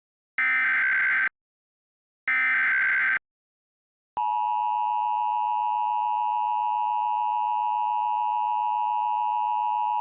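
Emergency Alert System signal: the last two of three short buzzy SAME digital header bursts, then about four seconds in the steady, piercing EAS attention tone starts and holds.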